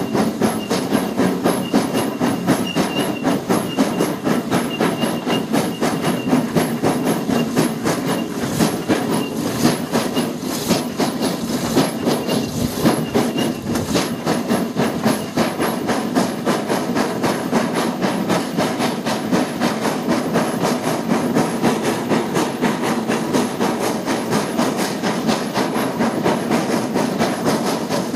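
Peckett 0-6-0 industrial steam locomotive working hard, with an even, rapid beat of exhaust chuffs over a steady hiss of steam.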